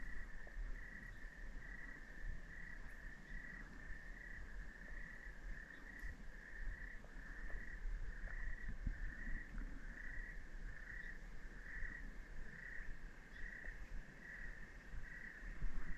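Cricket chirping in a steady, even rhythm, a little more than one chirp a second, all at one pitch.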